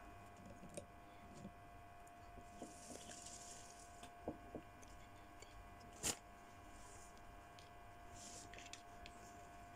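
Quiet room with a steady faint hum, broken by a few small clicks and brief rustles of hands handling eggs and a tissue at the table. The sharpest click comes about six seconds in.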